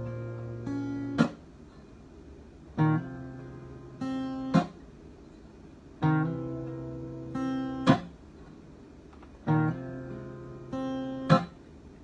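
Acoustic guitar playing a slow strummed intro. Each cycle is a chord struck and left to ring, a second chord, then a sharp percussive stroke that chokes the strings. The cycle repeats about every three and a half seconds.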